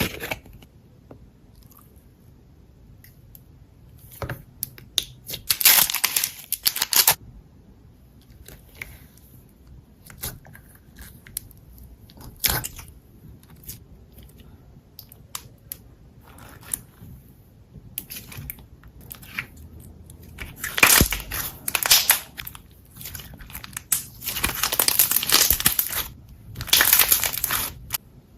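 Slime being squeezed and pressed by hand, giving irregular bursts of small crackling pops with quiet gaps between them; the busiest, loudest bursts come about two-thirds of the way in and near the end.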